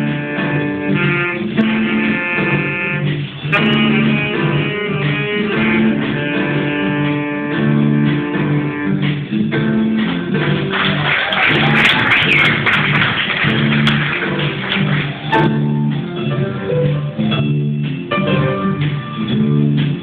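Live rock-pop band playing a song, guitars and bass to the fore, with a stretch of louder, hissier playing about halfway through.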